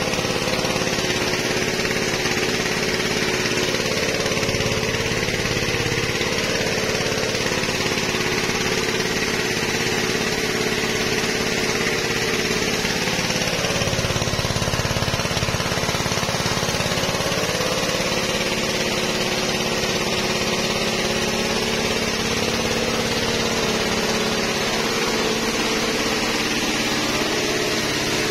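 Small petrol engine driving a pressure sprayer's pump, running steadily under load, with the hiss of the spray from the lance.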